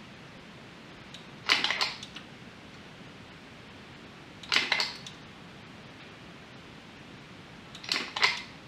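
Sunkco 737G battery spot welder firing three welds about three seconds apart, each a short sharp snapping crackle, as nickel strip is welded onto the terminal of an 18650 lithium cell pack.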